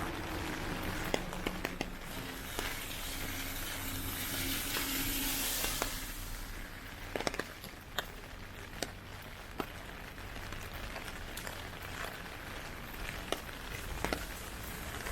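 Heavy typhoon rain falling on a city street: a steady hiss of rain with scattered sharp drips and taps. A louder rushing hiss swells for a couple of seconds about four to six seconds in.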